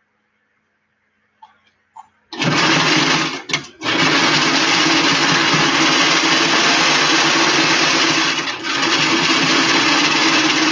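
Electric sewing machine running at speed, stitching fabric. It starts about two seconds in, stops briefly twice just after, then runs steadily on.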